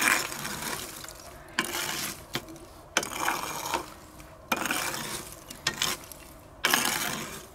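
Metal fire rake scraping glowing embers across the floor of a wood-fired clay oven, pushing them to the back: about five scraping strokes, each a second or so long.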